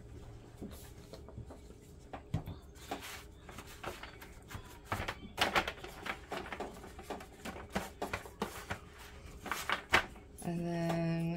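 Gloved hands pressing and scrunching dye-soaked fabric in a disposable aluminium foil pan, the thin foil crinkling and crackling in irregular clicks. A short steady tone sounds near the end.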